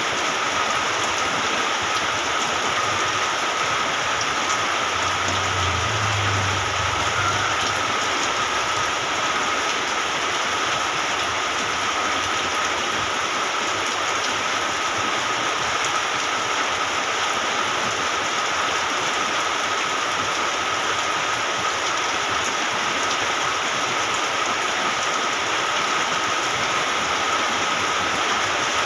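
Steady rain falling, an even unbroken hiss. A thin steady high tone runs underneath, and a faint low hum rises and fades about five to eight seconds in.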